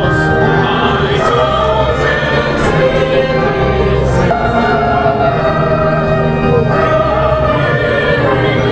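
A choir singing, holding long notes.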